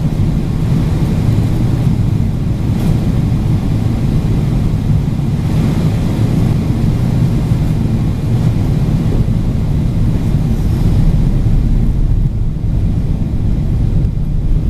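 Steady low rumble of an airliner cabin in flight: jet engine and airflow noise during the descent.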